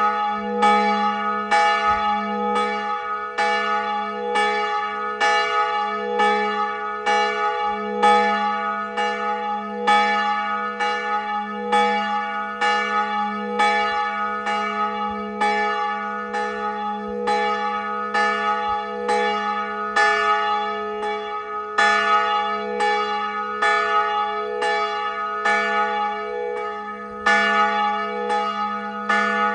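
Church bell tolling in a fast, even rhythm of about one and a half strokes a second. Each stroke rings on into the next, so a steady bell hum carries underneath the whole time.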